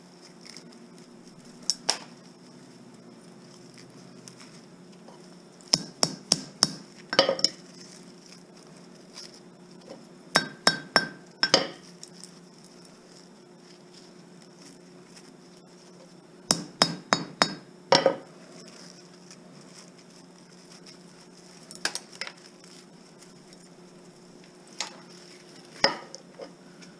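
Sharp metallic knocks and clinks from hand tools working on scrap TV parts. They come in quick runs of four or five strikes, repeated every few seconds over a faint steady hum.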